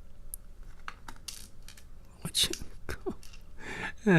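Small metal clicks and taps of lock pins and parts being handled and dropped while a padlock is taken apart, with a louder cluster of clicks about two and a half seconds in. Right at the end a low voice starts a sound that slides down in pitch.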